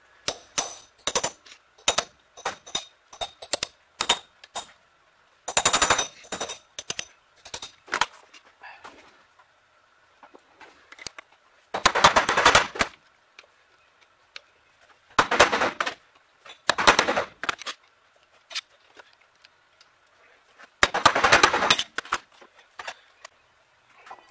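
A steel punch struck against a worn bushing inside a metal starter/generator end housing to work it out. Sharp metal clicks and taps come first, then four runs of rapid strikes, each about a second long.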